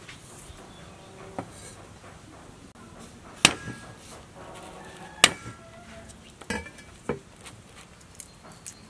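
Cleaver striking garlic cloves on a wooden chopping board: several sharp knocks, the two loudest about two seconds apart, each with a brief metallic ring.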